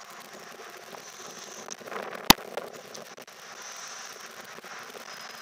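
Class 175 diesel multiple unit at the station platform, heard as a crackling, hissy rumble of noise with one sharp knock a little over two seconds in.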